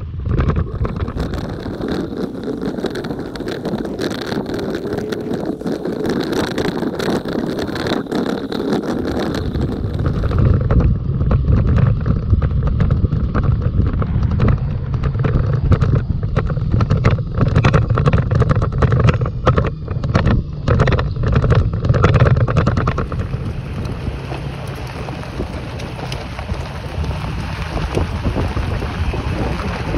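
Toyota Tacoma pickup driving on a dirt road, picked up by a camera mounted outside the truck: wind buffeting the microphone over the rumble of tyres on dirt and gravel. Through the middle comes a run of knocks and clatters, among them a distant gunshot.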